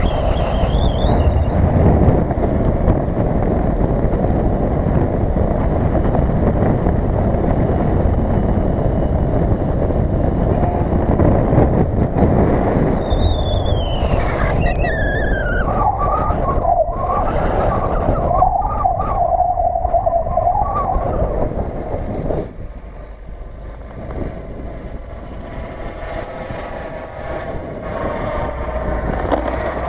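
Off-road vehicle engine running under a heavy low rumble. About halfway through, a high whine falls in pitch and then holds steady for a few seconds. The rumble eases off about two-thirds of the way through.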